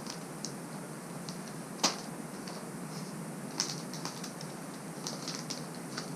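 Plastic wrapping and packaging of a new iPhone box being handled, with scattered light crinkles and clicks and two sharper clicks about two and three and a half seconds in.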